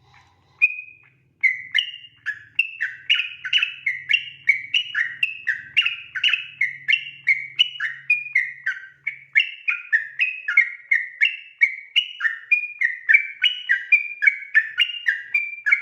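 Yellow-vented bulbul (trucukan) singing a long rapid 'ropel' song: a couple of single notes, then from about a second and a half in an unbroken stream of quick notes jumping between pitches, about three a second.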